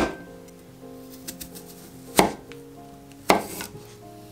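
Santoku knife slicing through a Fuyu persimmon and knocking on a wooden cutting board. There are three sharp knocks: one at the start and two more about two and three seconds in.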